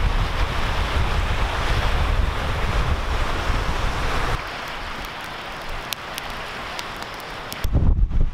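Strong wind and waves washing against a rocky lakeshore, with wind buffeting the microphone. About four seconds in it drops to a quieter rush of wind with a few faint clicks, and the low buffeting returns near the end.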